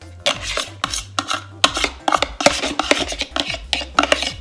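Rustling and scraping of a package of shredded Monterey Jack cheese, shaken again and again as the cheese is tipped out into a slow cooker.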